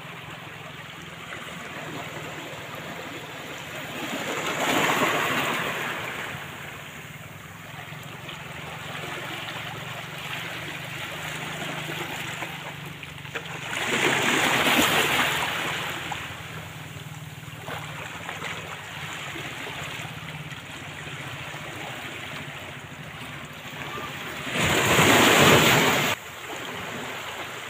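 Small sea waves washing in over a rocky shore, with three louder surges of breaking water, the last cut off short, over steady wind on the microphone.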